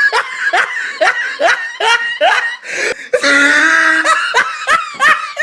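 Hearty laughter in short rapid ha-ha bursts, about four a second. A held high-pitched squeal breaks in about three seconds in, and the laughing then starts again.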